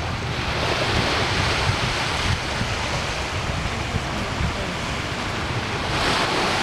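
Ocean surf washing onto the beach, a steady rush that swells twice, with wind rumbling on the microphone.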